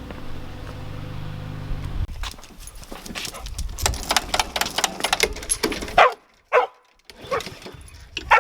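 A low steady hum that cuts off suddenly about two seconds in, then a Vizsla barking: about four short, sharp barks in the last two and a half seconds.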